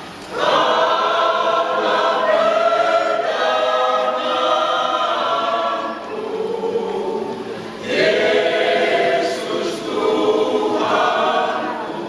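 Elderly church choir singing. A phrase starts about half a second in, the singing softens around six seconds, and a new phrase begins at about eight seconds.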